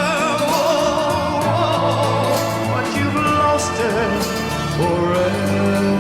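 Soundtrack music: a song with a vibrato vocal line over held bass notes and accompaniment.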